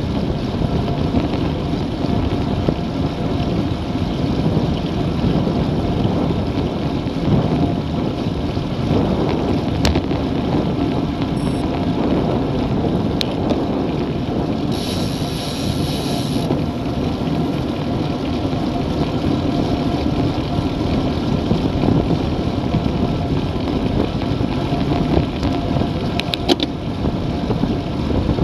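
Wind rushing over a camera mounted on a road bicycle riding at speed, with steady road and tyre noise underneath. A short burst of high hiss comes about halfway through.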